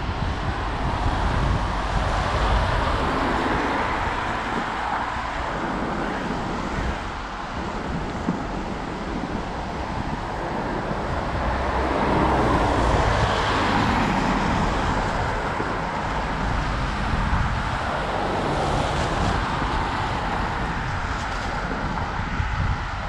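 Outdoor traffic noise mixed with wind, rising and falling, loudest about halfway through as if a vehicle is passing.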